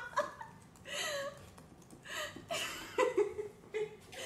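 People laughing in several short bursts, with a brief pause between.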